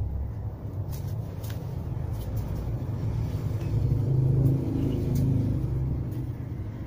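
Low rumble of a motor vehicle engine running, swelling louder about four seconds in and easing off again, with a few faint ticks.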